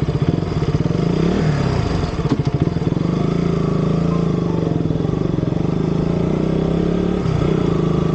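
Sport motorcycle's engine pulling away from a stop and running on at a steady pace, heard from the rider's seat. The engine note shifts briefly about a second and a half in and again near the end.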